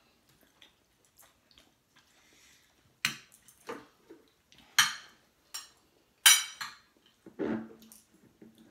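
Spoon and fork clinking and scraping against dinner plates while eating: about half a dozen sharp clinks, starting about three seconds in.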